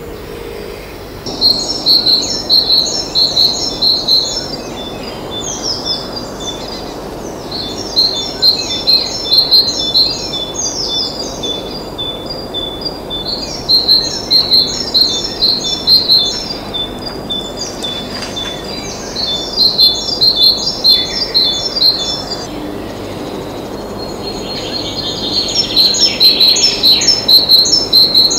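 A small songbird singing: phrases of quick, repeated high chirping notes, each lasting two to three seconds, coming back every few seconds, over steady low background noise.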